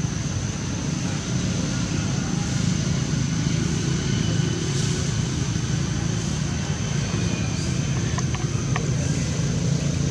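Steady low rumble of outdoor background noise with a thin, steady high tone above it, and a few faint clicks near the end.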